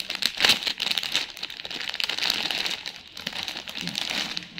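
Clear plastic jewellery cover crinkling as it is handled and a gold-coloured necklace is pulled out of it. Loudest about half a second in, fading near the end.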